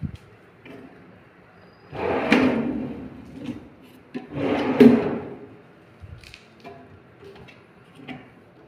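Wooden cabinet drawers being slid open and shut by hand: two sliding runs a couple of seconds apart, each swelling and fading, with a few light knocks and clicks.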